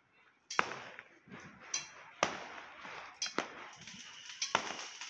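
Firecrackers bursting: about five sharp bangs at irregular intervals, roughly a second apart, each trailing off in a short echo.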